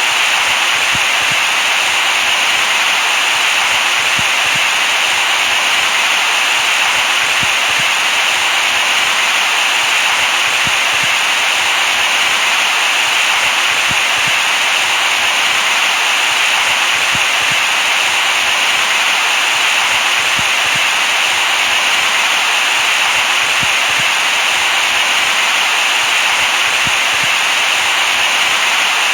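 Steady white noise: an even, unbroken bright hiss with little bass.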